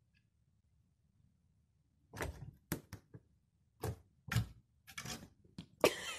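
Two cats scuffling over a wooden chair back and sofa: paws and claws striking and scraping, a run of irregular knocks and scrapes starting about two seconds in, the loudest near the end.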